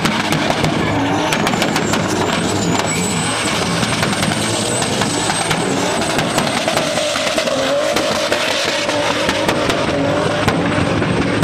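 SUV engine held at high revs with tyres squealing as it spins donuts in a smoky burnout. The sound is loud and steady throughout, with a thin high whine over it.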